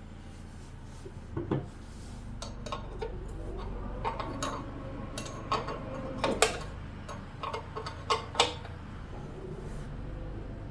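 Irregular metal clicks, clinks and taps of hand tools and parts being handled while the oil drain plug is set back into the tractor's pan, with a few sharper knocks among them.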